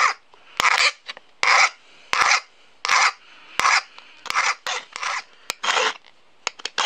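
Flat hand file rasping across the steel pick of an ice axe in about ten steady, evenly paced strokes, roughly one every 0.7 s. The file slowly takes metal off beside the tip of a worn pick to shape a new point.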